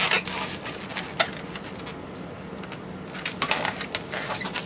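A 260 latex modelling balloon being handled and twisted, its rubber giving short rubbing sounds and clicks: a burst at the start, a sharp click about a second in, and a cluster of rubbing near the end.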